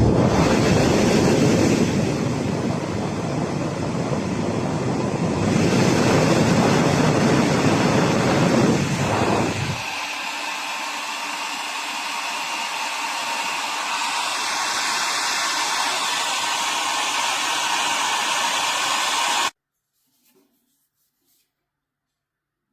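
DEWILY 1800 W ionic hair dryer running with a steady rush of air. About ten seconds in, the deep part of the sound drops away and it runs thinner, then it shuts off suddenly a few seconds before the end.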